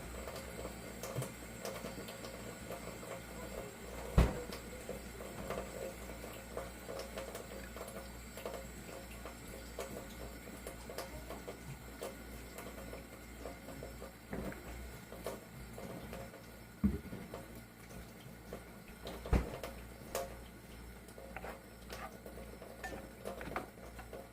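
A utensil clinking and scraping in a pot as macaroni is stirred with butter, oil and milk, with sharper knocks about 4 seconds in and twice more near the end. A low steady hum runs underneath.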